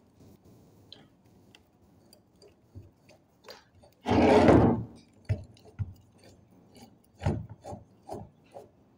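Metal parts of a starter motor being handled and fitted together: scattered light clicks, one loud scraping rub lasting under a second about four seconds in, then a run of short knocks.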